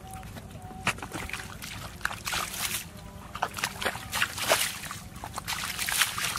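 Bare feet squelching and sloshing through wet mud and shallow muddy water, an irregular run of wet splashes beginning about a second in.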